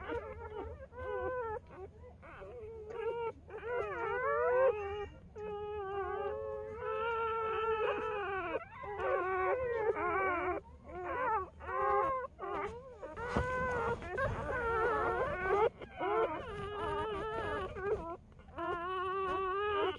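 A litter of newborn puppies whimpering and squealing: high cries that rise and fall, several overlapping, with only brief gaps.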